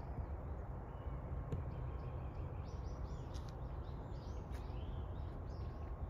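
Small birds chirping a quick run of short calls, starting about a second in and fading out near the end, over a steady low rumble.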